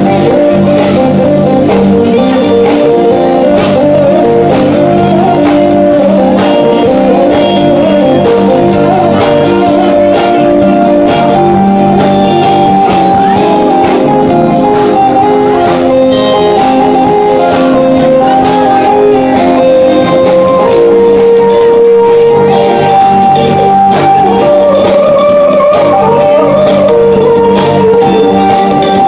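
Live instrumental funk jam played loud by a band: electric guitar lines over bass, keyboards and drums, with no singing.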